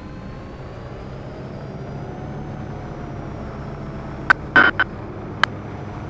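MD500 helicopter in the flare of a practice autorotation, heard from the cockpit. A steady rotor and turbine drone carries a whine that slowly rises in pitch. Between about four and five and a half seconds in come four short, sharp clicks or knocks.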